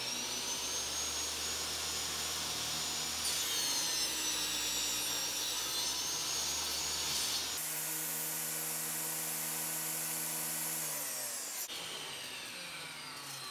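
Table saw running steadily as its blade crosscuts a wooden block on a sled, the sound changing while the blade is in the wood. Near the end the saw is switched off and its blade winds down, the pitch falling away.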